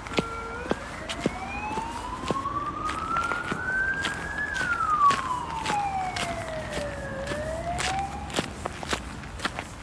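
An emergency-vehicle siren wailing slowly: the pitch rises for about four seconds, falls for about three, then begins to rise again near the end. Footsteps on a gravel path tick along underneath.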